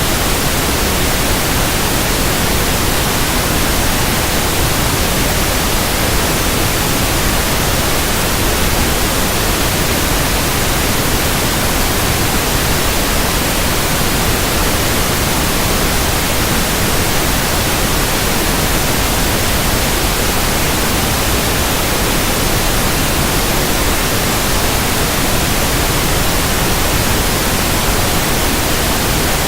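Pink noise test signal: a steady, unchanging hiss spread evenly from the deep lows to the highs.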